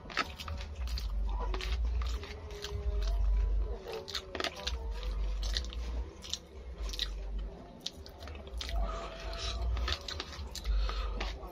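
A person chewing a mouthful of rice and tofu, wet mouth sounds with many sharp clicks and smacks, heard close up.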